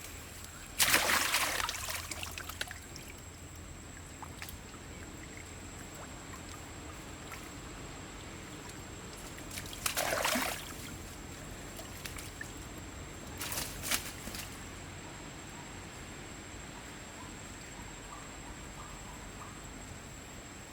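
Water splashing and sloshing in three short bursts: a sudden loud splash about a second in that dies away over a second or so, then two smaller ones around ten and fourteen seconds in.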